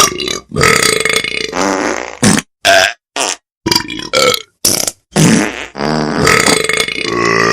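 A comic ringtone made of recorded burp sounds, played as a string of short burps with abrupt stops and brief silences between them.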